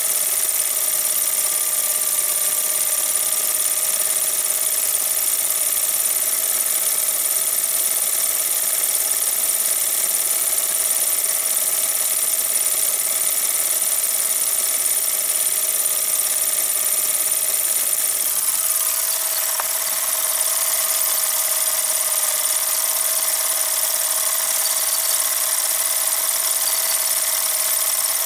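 Film projector running: a steady mechanical whir with a constant hum over hiss. About two-thirds of the way through, one tone slides down in pitch.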